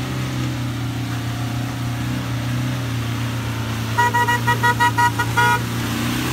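Car horn giving a quick string of about eight short toots, over the steady drone of a running engine.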